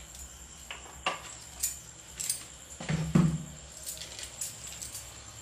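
Scattered light knocks and clinks of kitchen utensils and containers being handled beside a gas stove, with one heavier knock about three seconds in that rings briefly, over a faint steady high whine.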